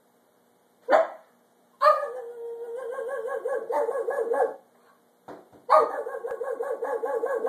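A dog barking: one short bark, then two long runs of quick, rapid-fire barks.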